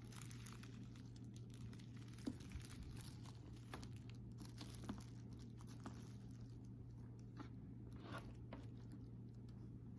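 Faint rustling and scattered light clicks of a leather handbag and its straps being handled, over a steady low hum.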